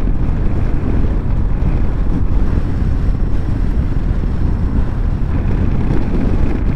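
Wind rushing over a motorcycle-mounted microphone, with the low, steady running of a Honda Crosstourer's V4 engine underneath as the bike rides along at a steady speed.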